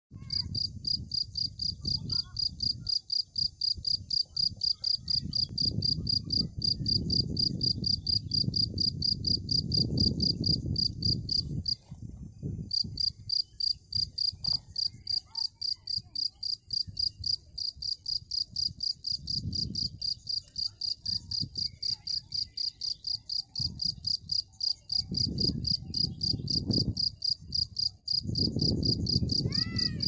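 Field cricket singing at its burrow mouth, rubbing its wings together in an even run of high, short chirps, about four a second. The song breaks off briefly about twelve seconds in, then resumes. A low rumble of noise on the microphone sits beneath it.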